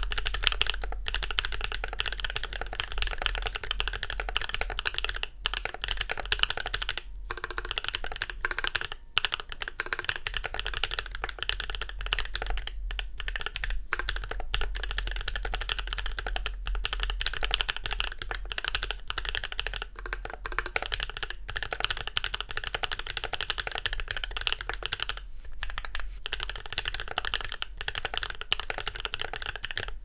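Fast, continuous two-handed typing on an LZ ergo custom mechanical keyboard with an aluminium plate in a sandwich mount, lubed Gateron Ink Box Pink linear switches and PBT keycaps: a dense run of keystrokes with a few brief pauses.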